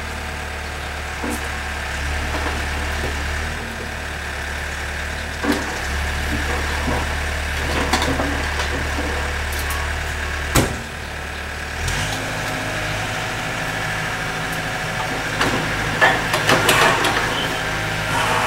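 Takeuchi mini excavator's diesel engine running steadily, its engine note stepping up about twelve seconds in, with several sharp knocks, the loudest a little past halfway and a cluster near the end.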